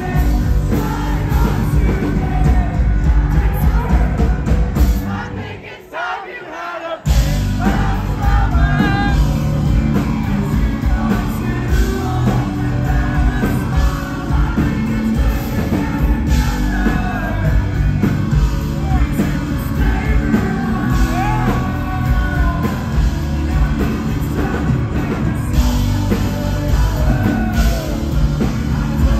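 Live rock band playing loud with a singer, amid a packed crowd. About five seconds in the band drops out for a moment and then crashes back in at full volume.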